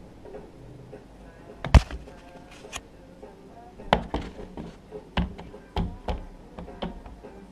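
Knocks and thumps from a cat leaping after a laser dot, its paws and body striking the wall and door frame as it jumps and lands. The loudest comes about two seconds in, followed by several more irregular knocks.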